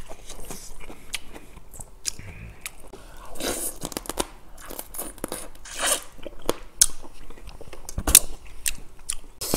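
Close-miked wet chewing, sucking and crunching as soy-marinated raw swimming crab (ganjang gejang) is eaten, with the meat sucked out of the legs and shell. The sound is made up of many sharp crackles and clicks and a few short sucking slurps.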